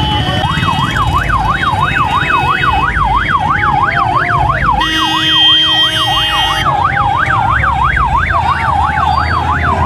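Electronic siren in a fast up-and-down yelp, about four sweeps a second, starting about half a second in and keeping on, over a steady low rumble of motorcycle engines. About five seconds in, a steady horn sounds for about a second and a half.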